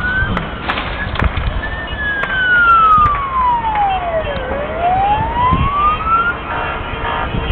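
A siren wailing, its tone slowly rising, falling away and rising again, over scattered bangs and pops of fireworks. Near the end several steady tones come in together.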